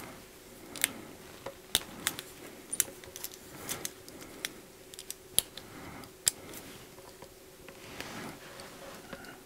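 Light metallic clicks and clinks of the Davosa Ternos Ceramic GMT's link bracelet as the watch is handled and put on the wrist, about a dozen scattered irregularly. Soft rubbing of hands and sleeve comes between them.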